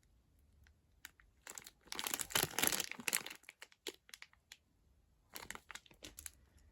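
Plastic snack packaging crinkling as it is handled, in a longer spell about a second and a half in and a shorter one near the end, with a few light clicks.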